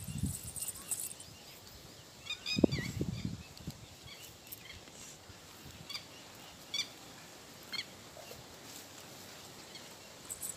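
Quiet farmyard sounds: a short run of bird chirps about two and a half seconds in, over a low thud that is the loudest moment, then a few faint ticks.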